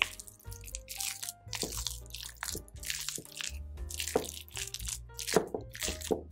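Wooden spatula mixing shredded pork rillettes in a glass bowl: repeated wet, squishy scraping strokes through the meat against the glass. Soft background music plays underneath.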